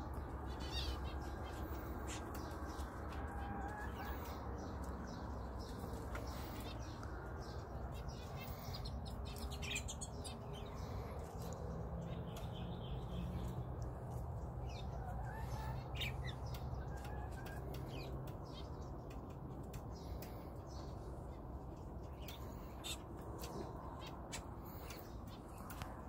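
Canaries chirping in short, scattered calls over a steady low background rumble.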